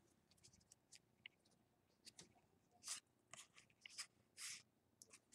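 Near silence, with a few faint, brief rustles of trading cards being handled and shuffled.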